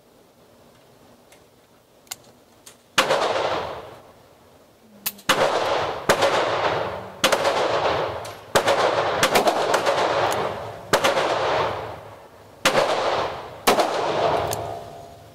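Taurus Judge revolver firing .410 shotshells, a string of single shots spaced about a second or more apart, the first about three seconds in. Each shot trails off in a long echo from the enclosed indoor range.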